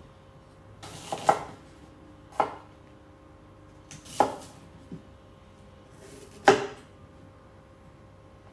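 A few separate sharp knocks of kitchenware a second or two apart, the loudest near the end, as a pot and utensils are handled or pear is chopped on a board.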